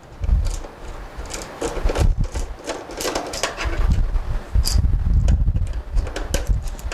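Small precision screwdriver turning out the screw of the metal cover plate on the bottom of an Epson TM-T88 receipt printer. It gives a run of small irregular clicks and scrapes, with low thumps and rubbing from the hand against the plastic case, busier in the second half.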